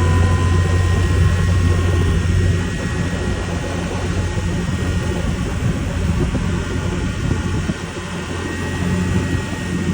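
A car accelerating, with a constant whirring whine, a thin steady high tone, over a low engine and road drone; the drone is strongest for the first couple of seconds, then eases. The owner says the car has whirred like this when accelerating since new.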